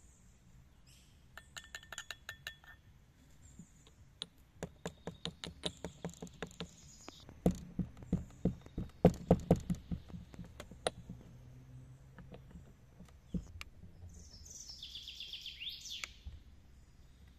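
White stone mortar and pestle pounding: a quick run of stone-on-stone strikes, the first few ringing clearly, then heavier thuds through the middle. A bird calls near the end.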